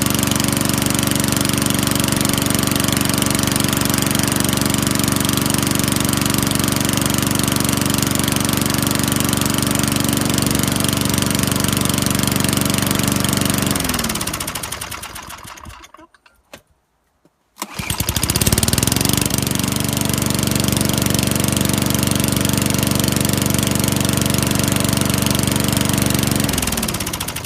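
Early-80s Mastercraft lawnmower's 3.5 hp Tecumseh single-cylinder engine running steadily after a cold start. About fourteen seconds in it stops and winds down to silence, starts again about a second and a half later and runs up to speed, then winds down once more near the end.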